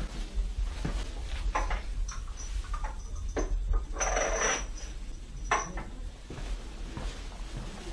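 Plastic cupping cups being released and handled: a few light knocks and clatters, with a short hiss about four seconds in.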